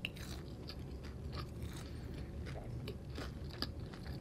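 Close-miked chewing of a mouthful of food: a run of small wet clicks and light crunches from the mouth.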